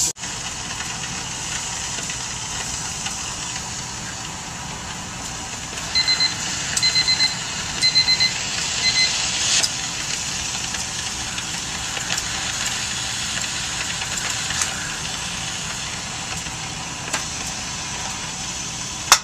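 Denton DCP-1 critical point dryer venting carbon dioxide gas through its vent valve: a steady hiss, the purge that flushes ethanol out of the sample chamber. About six seconds in, a run of short electronic beeps in quick groups sounds for about three seconds.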